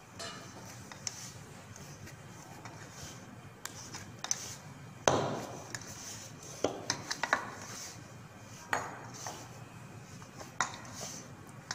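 Plastic dough scraper scraping and knocking against a stainless steel mixing bowl as soft bread dough is mixed by hand, in irregular knocks and scrapes, the loudest about five seconds in.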